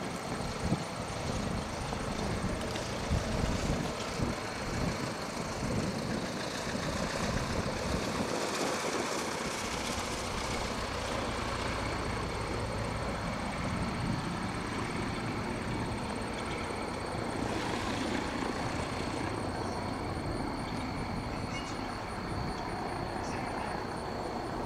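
Aircraft engine noise: a steady drone with a thin, steady high whine over it.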